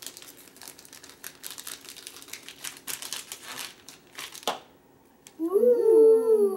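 Crinkling of a foil blind-bag packet as it is torn open and handled, with a sharp snap or tear about four and a half seconds in. Near the end a child's voice makes one drawn-out sound that falls in pitch.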